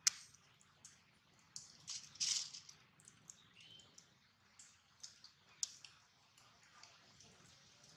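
Macaque chewing and pulling at dry plant fibres close by: a string of sharp clicks and crunches, loudest at the very start and about two seconds in.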